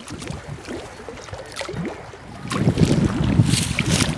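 Shallow water sloshing with wind noise on the microphone, getting louder about two and a half seconds in.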